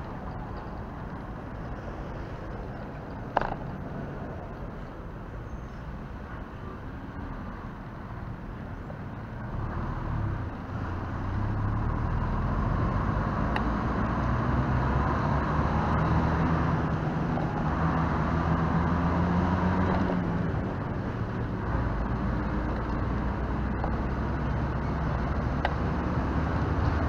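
Road traffic passing close by, with a lorry's engine hum growing louder from about ten seconds in and staying up. A single sharp click comes a few seconds in.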